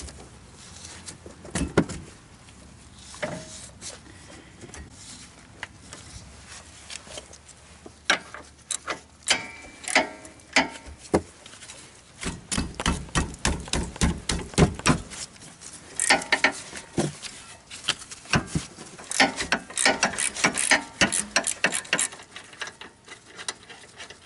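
Socket ratchet clicking as an 18 mm caliper bracket bolt is backed out, with scattered knocks of the tool at first, then fast runs of ratchet clicks in the second half.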